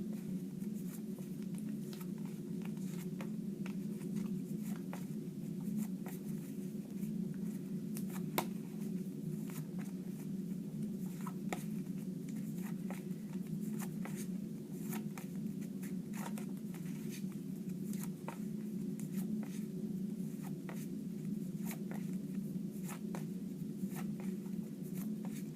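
Quiet room tone with a steady low hum, broken by scattered small clicks and rustles of handling.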